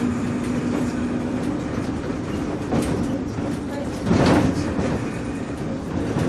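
Bus riding along, heard from inside: the engine and road rumble run steadily under the rattle of the body, and an engine hum fades about a second and a half in. About four seconds in comes a louder, half-second clatter, as from a jolt or bump.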